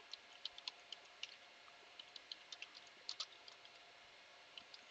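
Faint computer keyboard keystrokes, irregular and spaced out, as a command is typed at a terminal.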